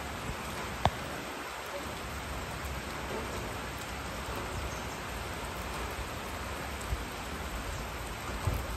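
Steady rain falling, an even hiss, with a single sharp tick about a second in.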